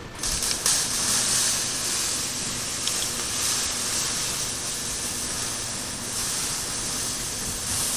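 A steady hiss, even and unbroken, starting abruptly.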